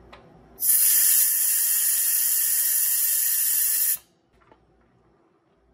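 Compressed air hissing out of the air valve on top of a Wellmate well pressure tank as the valve is pressed, loud and steady for about three seconds, then cut off sharply. The tank's air pre-charge is being let down toward 36 PSI.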